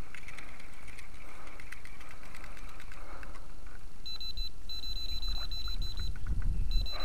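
Electronic bite alarm on a fishing rod beeping in fast runs of high pulses, starting about four seconds in: the signal that a fish has taken the bait and is pulling line.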